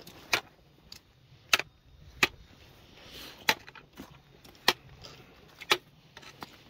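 Footsteps crunching and clacking on wet stones and shell-encrusted rocks of a tidal flat, about one sharp step a second.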